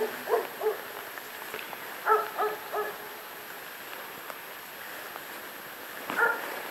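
A dog barking in short groups: two barks at the start, three in quick succession about two seconds in, and one more near the end.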